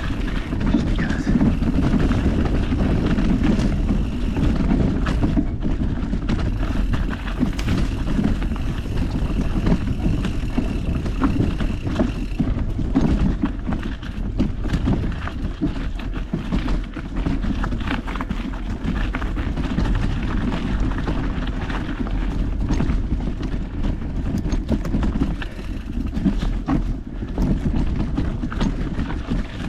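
Mountain bike riding a rough trail: a steady rumble of tyres and frame, broken by many sharp knocks and rattles over roots and rocks.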